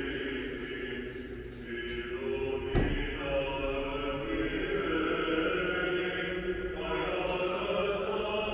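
Choir chanting, several voices holding long notes, with a single short knock about three seconds in.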